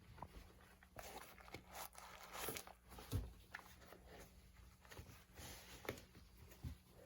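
Faint rustling and a few soft taps and clicks of skate shoes being handled.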